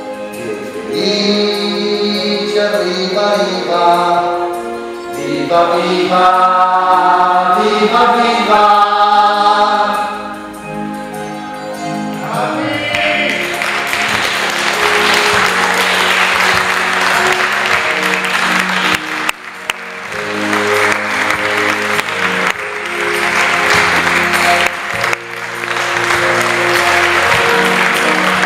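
A stage cast singing a closing chorus together over musical accompaniment; about twelve seconds in the singing ends and the audience breaks into sustained applause while the music carries on underneath.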